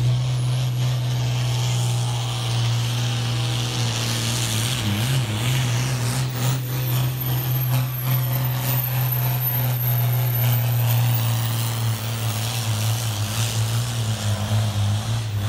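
Blue Ford farm tractor's diesel engine running flat out under heavy load while it drags a weighted pulling sled, a loud, steady drone with no let-up.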